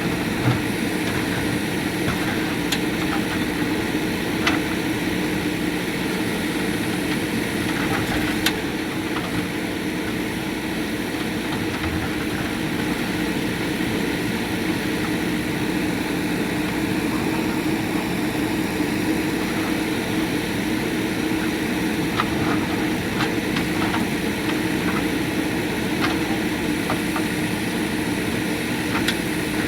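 JCB 3DX backhoe loader's diesel engine running steadily, with occasional sharp knocks, a few in the first several seconds and a cluster over the last several seconds.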